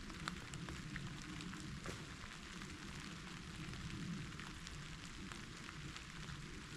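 Light precipitation pattering: many faint, scattered ticks over a steady hiss.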